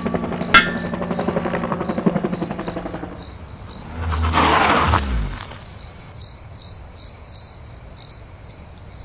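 Crickets chirping steadily as a night-ambience sound effect, with background music fading out over the first few seconds. About four seconds in comes a loud whoosh with a falling pitch.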